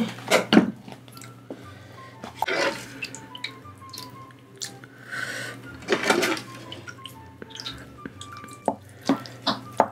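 Spicy stew broth being ladled over rice in a ceramic bowl: liquid splashing and dripping, with clinks and taps of the spoon on the bowl. There are several short splashes, the loudest about half a second, two and a half, and six seconds in.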